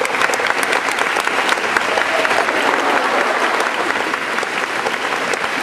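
Large audience applauding, steady sustained clapping.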